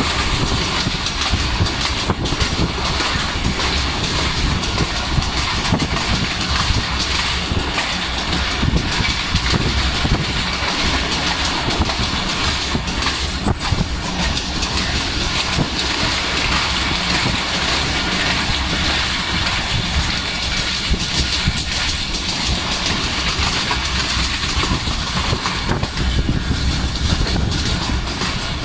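Pakistani passenger train running at speed, heard from inside a carriage: a steady rumble and rattle of the wheels on the rails, with irregular clicks and knocks.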